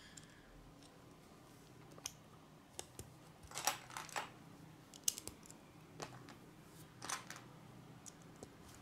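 Small plastic Lego pieces clicking and snapping as they are handled and pressed onto a model: about a dozen irregular, quiet, sharp clicks, some in quick pairs.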